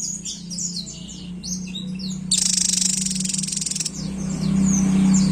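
Javan tesia singing: a fast jumble of short, high, falling whistled notes, broken about two seconds in by a loud, dense buzzing trill lasting about a second and a half.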